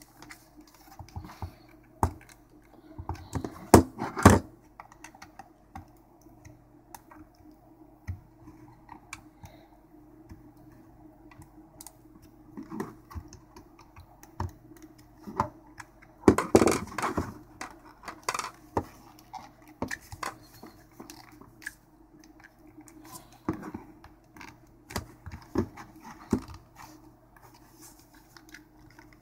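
Plastic battery-pack casing of a Dyson DC35 being pried and pulled apart by hand and with a screwdriver: scattered clicks, creaks and scrapes of the snap-fit seam, with louder cracks about four seconds in and again around the middle.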